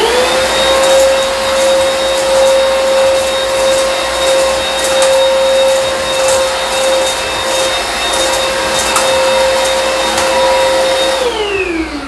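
Eureka RapidClean Pro cordless stick vacuum's motor spinning up and running with a steady whine over a rush of air. About eleven seconds in it is switched off and the whine falls in pitch as the motor winds down.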